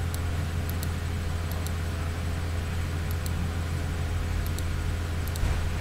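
Steady low hum with hiss: background noise of the recording, with a few faint high ticks scattered through it.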